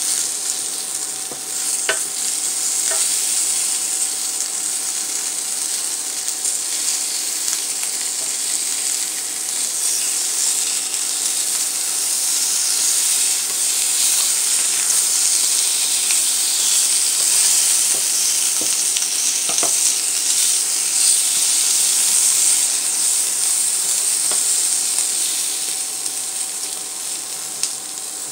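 Asparagus, carrots and mushrooms sizzling steadily in a stainless steel frying pan, with a few light knocks as a wooden spatula turns them.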